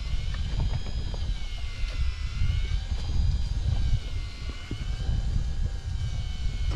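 Wind buffeting the microphone on an open boat with a fluttering low rumble, over a thin whine that slowly rises and falls in pitch.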